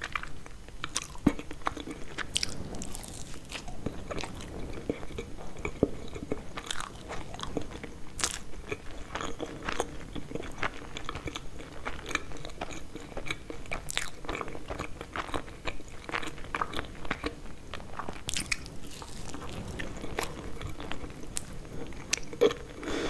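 Close-miked chewing and crunching of Napoleon cake, its thin brittle pastry layers with custard cream, in a dense run of small crackly bites and wet mouth sounds.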